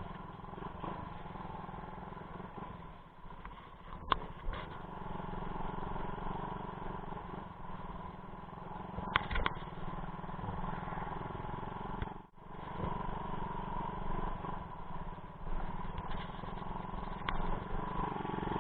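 A small engine running steadily, with a couple of brief clicks.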